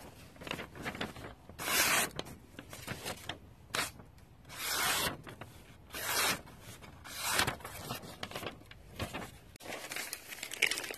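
Razor-sharp, hollow-ground knife blade slicing through a hand-held sheet of graph paper: several separate hissing slicing strokes, with paper rustling between them.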